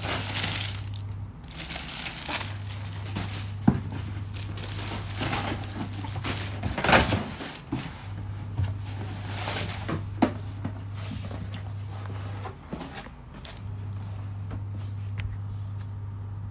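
Plastic bag and plastic wrapping crinkling and rustling as packages are handled and pulled out of a cardboard shipping box, with a few sharp knocks. A steady low hum stops and starts underneath.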